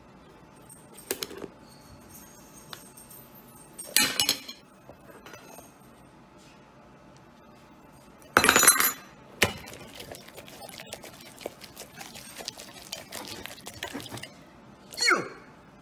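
Cartoon eating sound effects: a fork clinking and scraping on a plate, with louder clatters about four and eight seconds in and a run of small clicks after them. A quick falling tone comes near the end.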